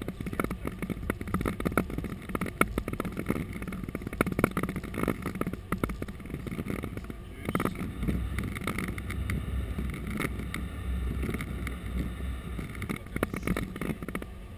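Cockpit noise of an Airbus A330-200 over the runway while landing: a steady rumble of airflow and engines with many small knocks and rattles. The low rumble grows stronger about halfway through.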